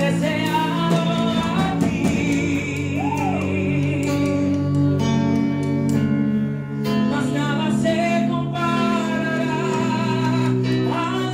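Live Spanish-language worship music: a man sings lead into a microphone over a band's steady held chords.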